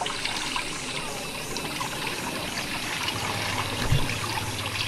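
Water running steadily down a small channel from the lake, the flow the fish swim up against. A low steady hum joins in about three seconds in, with a brief low thump near the end.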